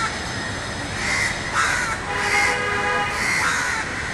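Crows cawing, about four harsh calls in quick succession, over a steady hum of city traffic.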